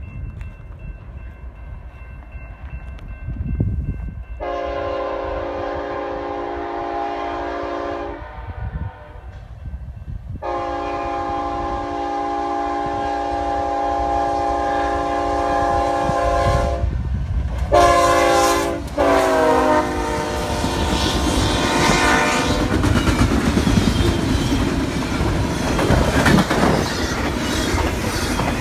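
Air horn of an approaching BNSF diesel locomotive on a high-speed double-stack intermodal train: two long chords, a short one, then a last blast that drops in pitch as the locomotive passes close by. It is followed by the loud rumble and clickety-clack of the stack cars' wheels rolling past at speed.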